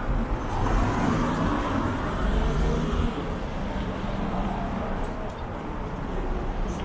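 City street traffic: motor vehicles running past, with a steady rumble of engines and tyres.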